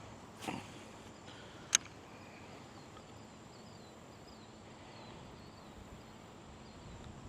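Faint riverside ambience: a steady low rush, a run of soft high chirps, a soft knock near the start and a single sharp click a little under two seconds in.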